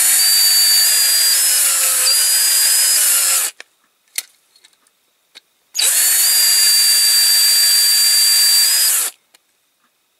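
Cordless drill boring out the rivet post on the base of a diecast toy car: a steady whine for about three and a half seconds, a short pause with a few small clicks, then a second run of about three and a half seconds.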